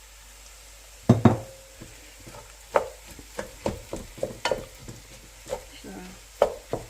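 Cooked rice being stirred and fried in a pan: two loud knocks about a second in, then repeated sharp clacks of a utensil against the pan over a low sizzle.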